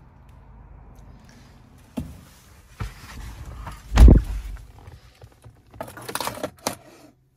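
Handling sounds from someone getting into a 2022 Mercedes-Benz GLC: a few knocks, then the driver's door shutting with a heavy low thump about four seconds in. Near the end comes a quick run of clicks from the centre-console controls.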